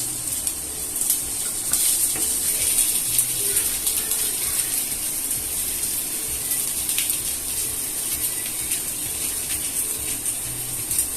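Onions and ginger-garlic paste frying in hot oil in a pan: a steady high sizzle with occasional light clicks.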